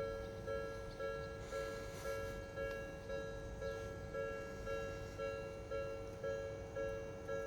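Japanese railway level-crossing warning alarm ringing its electronic two-tone chime, repeating steadily about twice a second: the signal that a train is approaching and the barriers are down.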